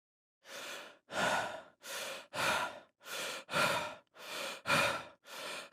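A person breathing heavily and fast through the mouth: about five in-and-out breaths, each pair about a second long, the softer breath in followed by a louder breath out. The breathing starts after about half a second of silence.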